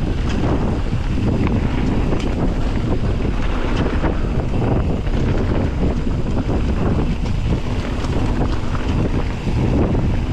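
Wind buffeting the microphone of a mountain bike rider's camera at speed, a steady rough rumble with scattered sharp clicks and rattles from the bike on the trail.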